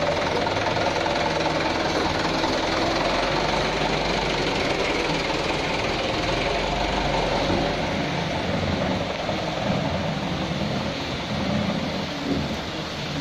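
Mitsubishi Canter truck's diesel engine running steadily as the truck moves off at low speed, getting a little quieter in the second half as it pulls away.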